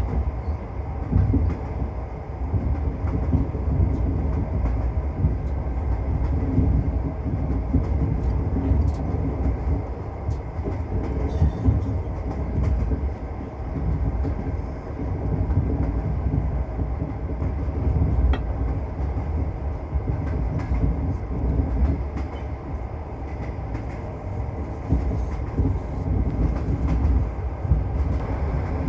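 Train wheels rumbling and clattering on the rails as the train runs: a continuous low rumble that swells and eases, with faint ticks over it.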